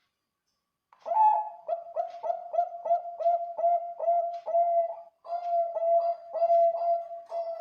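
Zebra dove (Bangkok-bred perkutut) cooing: a rapid run of short, even coo notes, about three a second, starting about a second in. The run breaks briefly a little past the middle, then carries on.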